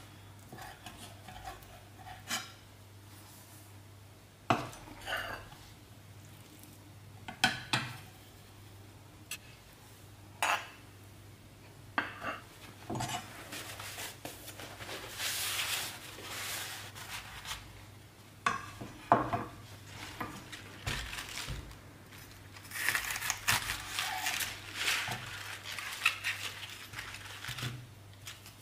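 Kitchen work at a bamboo cutting board: a knife and utensils knocking and clattering on the board in scattered sharp clacks, with stretches of rubbing as paper towel wipes the board.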